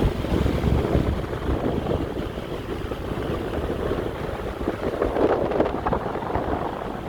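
Ventisol VP 60 wall fan running, its airflow making an uneven, fluttering rumble.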